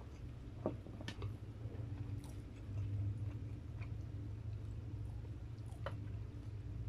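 Close-miked chewing of crispy fried chicken, with a few sharp crunchy clicks, the loudest under a second in, over a steady low hum.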